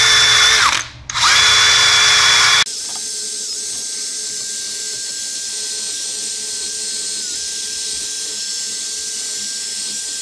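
Wire wheel spun by a power drill, scrubbing rust and corrosion off a wheel hub. The motor dips in speed and spins back up about a second in; about two and a half seconds in the sound changes abruptly to a quieter, steady whine.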